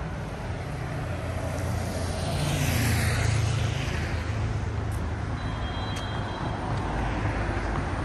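City road traffic: a steady low rumble of traffic, with one vehicle passing close by about two to four seconds in, rising and then fading.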